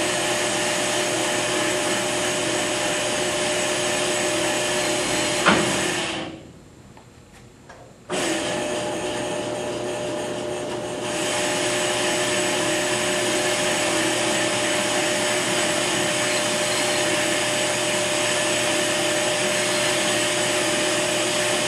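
Ammco bench brake lathe running steadily with a constant hum and whine while its cutting bits take a fast pass across a brake rotor, removing metal. About five and a half seconds in there is a sharp click. The sound then nearly drops away for about two seconds and comes back abruptly.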